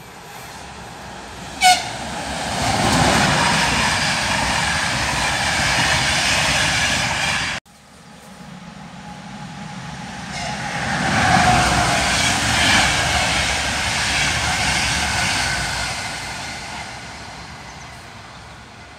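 Electric passenger trains passing. A short horn toot comes about two seconds in, then the running noise of a train swells and holds until it cuts off suddenly. A second train passage then builds up and fades away.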